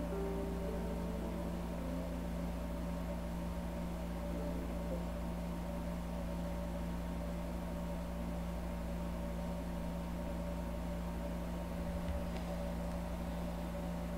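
Steady low hum with a faint hiss that stays unchanged throughout: the background noise of a recording.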